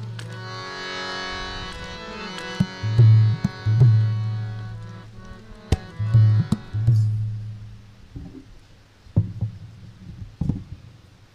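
Harmonium holding a sustained chord over deep tabla strokes; the harmonium stops about seven seconds in, leaving a few scattered tabla strokes.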